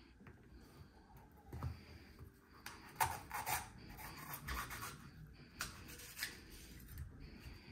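Knife cutting bell pepper on a cutting board: a faint, irregular run of slicing strokes and taps, loudest about three seconds in.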